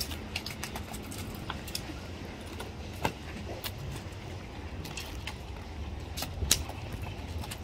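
A landed mullet flopping on concrete: irregular slaps and taps, the loudest about three seconds in and again about six and a half seconds in, over a steady low rumble.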